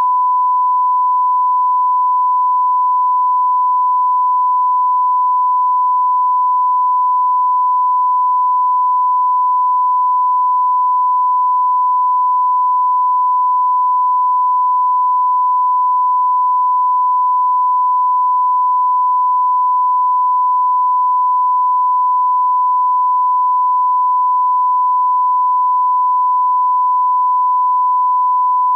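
Steady 1 kHz line-up tone, a single unbroken sine tone played with colour bars as the reference for setting audio levels.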